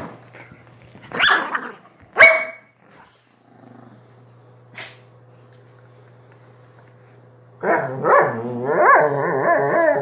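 Dogs play-fighting: two short, sharp barks in the first few seconds, then, from about three-quarters of the way in, a long, loud growl that wavers up and down in pitch.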